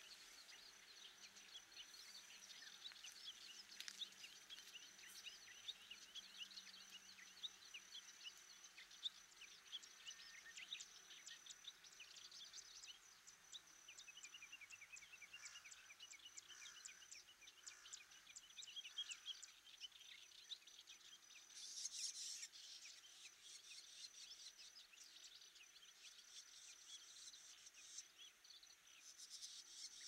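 Faint, rapid high chirping calls of small songbirds, with a thin steady high tone behind them through the first half and a brighter flurry of chirps about twenty-two seconds in.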